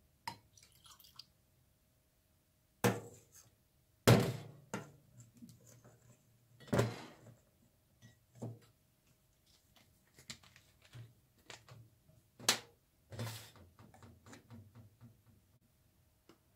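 A series of clunks and knocks as glass bottles and a measuring cup are handled and set down on a stainless-steel counter, the loudest about three, four and seven seconds in and again about twelve and a half seconds in.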